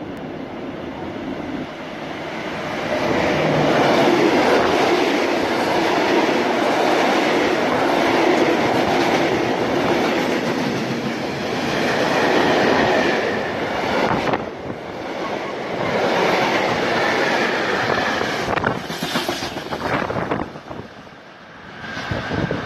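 Freight train of open wagons and tank wagons, hauled by an electric locomotive, passing close by: a loud rumble and clatter of wheels on the rails, swelling as the wagons come alongside about three seconds in.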